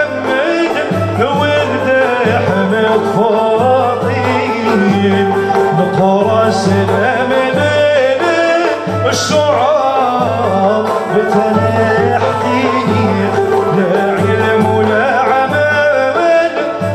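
Traditional Constantine ensemble music played live, with ouds and violins carrying a wavering melody over a steady pulsing drum beat.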